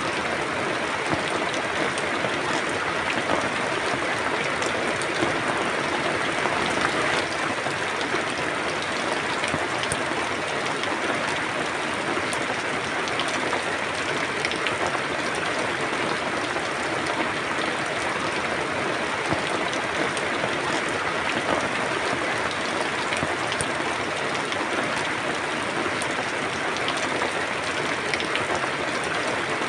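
Steady rain falling, an even patter of many drops with no break or change.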